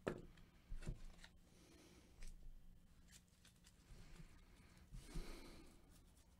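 Near silence: quiet room tone with a few faint clicks.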